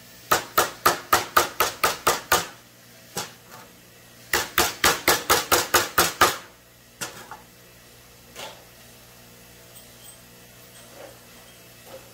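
A hammer striking a bent steel engine push rod laid on a wooden block, straightening it: two runs of about nine quick, sharp strikes, roughly four a second, a couple of seconds apart, then a few lighter knocks.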